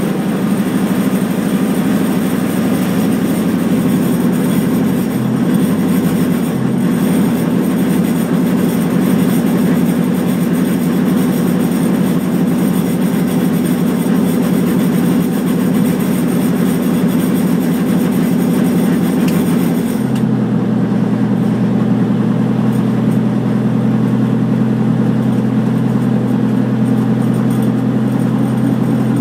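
Schweizer 300CBi helicopter's four-cylinder Lycoming piston engine running steadily after start-up, heard inside the cockpit. About twenty seconds in the sound changes abruptly: the upper hiss drops away and it settles into a smoother, lower drone.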